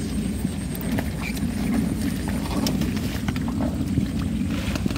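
Plant stems and leaves rustling and snapping as water hyacinth flowers are picked by hand: scattered sharp clicks over a steady low rumble.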